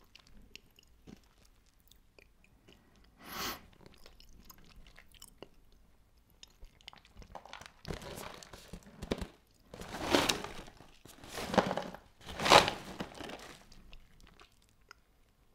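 Close-up chewing and crunching of crunchy breakfast cereal eaten with milk, in irregular bites. There is one crunch a few seconds in, and a run of louder crunches in the second half.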